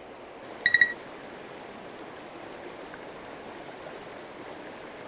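Mountain river rushing steadily over a rocky, boulder-strewn bed. Just under a second in, a quick run of four or five high pips sounds briefly over it.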